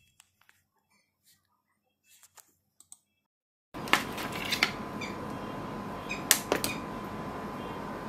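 Scattered light clicks and taps of small tools being handled at a phone repair bench. Nearly silent for the first few seconds, then the clicks sit over a steady hiss with a thin high hum.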